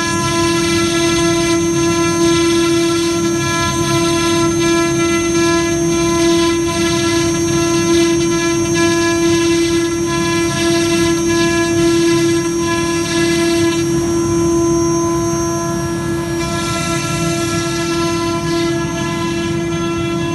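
CNC router spindle running with a steady high whine while the cutter mills through chipboard with a rough rasping hiss. About fourteen seconds in, the hiss thins out for a couple of seconds, then returns.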